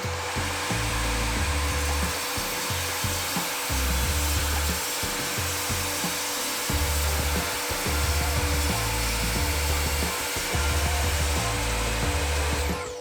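Evolution R255SMS sliding mitre saw running with its wood-cutting blade and cutting through wood: a steady, loud blade noise that winds down just before the end. Background music with a pulsing bass beat plays underneath.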